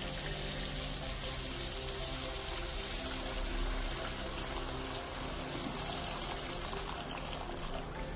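Rabbit stock poured in a steady stream into a pan of spiced masala, splashing into the sauce, with background music over it.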